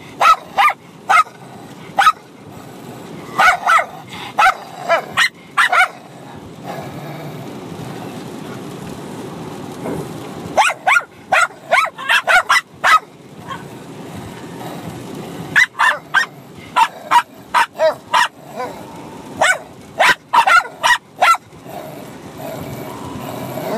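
A Bichon Frise puppy and an older Bichon Frise barking at each other while play-fighting. Short, sharp barks come in rapid clusters, with pauses of a few seconds between them; the longest pause is from about six to ten seconds in.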